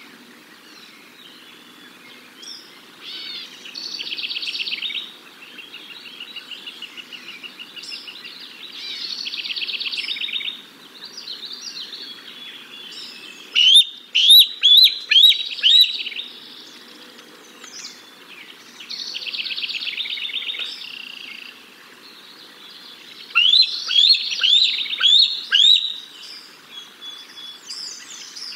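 Young bald eagle calling from the nest: two runs of high, sharp chirping squeals, five or six notes each over about two seconds, about midway and again near the end. Between them a small bird's short buzzy trill repeats every five seconds or so.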